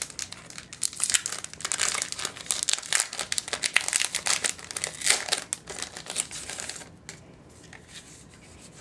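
Plastic packaging of a comic pack crinkling and rustling as it is opened by hand and the comic and sticker sheets are pulled out. The crinkling dies down about seven seconds in.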